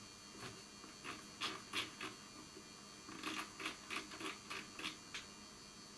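Irregular light clicks from an oscilloscope's front-panel knobs and buttons being turned and pressed, about a dozen over several seconds, over a faint steady electrical hum.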